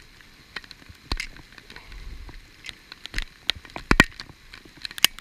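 Pouring rain: a faint steady hiss with irregular sharp taps and knocks, the loudest a pair about four seconds in.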